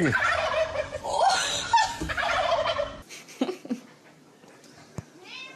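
A flock of wild turkeys calling, many overlapping calls, cut off abruptly about three seconds in. After that it is much quieter, with a few soft knocks and a brief call near the end.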